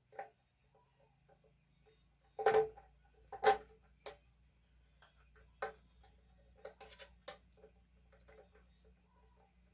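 Clicks and knocks of bench grinder parts being handled and fitted into place, with two louder clacks about two and a half and three and a half seconds in and a few more sharp clicks around five to seven seconds in.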